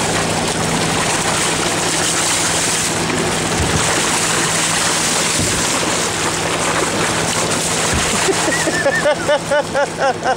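Boat engine running steadily with a low hum, under a constant wash of water and wind noise, with a few dull low thumps. Near the end a quick run of short pitched sounds that rise and fall, about three a second.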